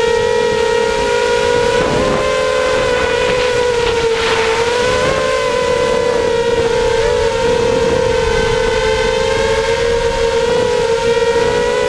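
Whine of an FPV 250 racing quadcopter's 2300 kV brushless motors and propellers, heard from the camera on board the quad. The high pitch holds steady with small rises and dips as the throttle shifts, with a brief rush of air about four seconds in.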